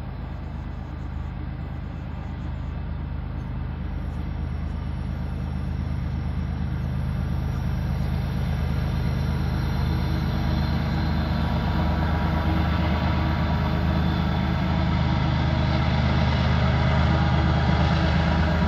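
BNSF diesel-electric freight locomotives running as they approach, a steady low engine drone that grows steadily louder as the train nears.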